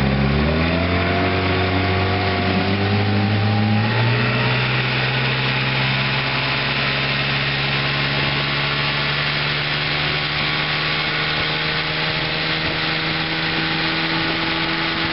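1958 Evinrude Sportwin 10 hp twin-cylinder two-stroke outboard motor being opened up in forward gear: its pitch rises over the first four seconds, then it runs steadily at speed, pushing the boat.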